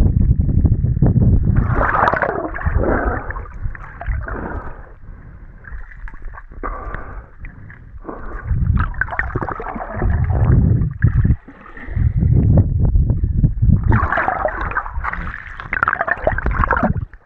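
Water sloshing and gurgling around an action camera held underwater by a swimmer, heard muffled, coming in surges every couple of seconds.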